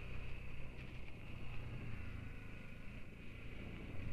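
BMW G 310 GS motorcycle's single-cylinder engine running steadily as the bike is ridden across dirt.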